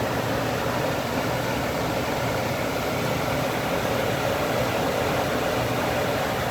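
Trane gas furnace running: a steady rushing noise with a low hum.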